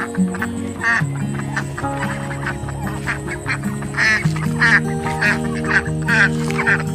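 Domestic ducks quacking repeatedly in short calls, over background music with long held notes.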